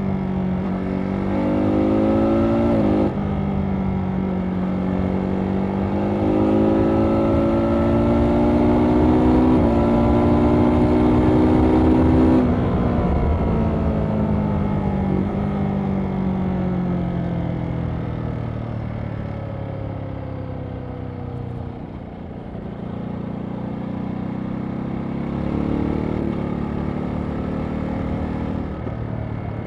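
2023 Ducati Monster SP's 937 cc L-twin engine pulling hard, its pitch climbing, with a sudden drop at a gear change about three seconds in, then climbing again. About twelve seconds in the throttle closes and the revs fall steadily for several seconds as the bike slows. The engine picks up again for a few seconds near the end.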